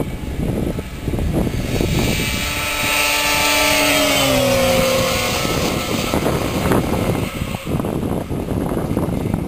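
2007 Arctic Cat F6 Sno Pro snowmobile's two-stroke twin engine passing close at speed. The engine note grows louder as the sled approaches, drops in pitch as it goes by about four seconds in, then fades as it runs away.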